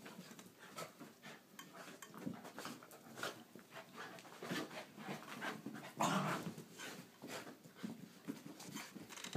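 Two dogs play-fighting: a string of short, irregular dog noises and scuffles, with a louder burst about six seconds in.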